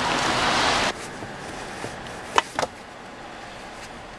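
A steady outdoor hiss that cuts off about a second in, then the quiet inside of a parked car, where two sharp clicks in quick succession come from a child's car-seat harness buckle being fastened.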